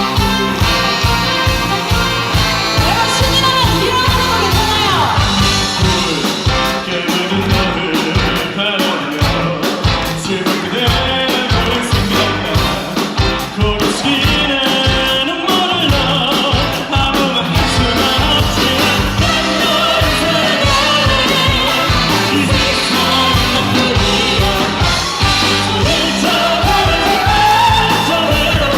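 Live big band playing an upbeat pop-rock arrangement with a steady beat, with a voice singing over it.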